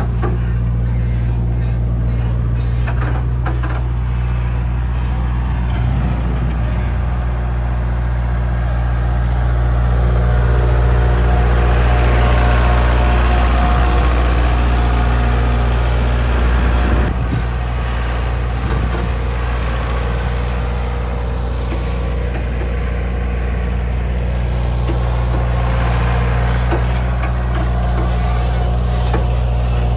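Kubota tractor's diesel engine running steadily. It swells somewhat louder midway, then eases back abruptly about seventeen seconds in.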